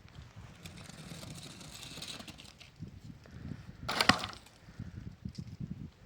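A short crackling crunch about four seconds in, like something brittle breaking, against a low, uneven background.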